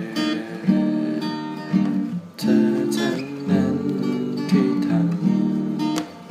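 Acoustic guitar strumming chords, an instrumental stretch between sung lines of a song.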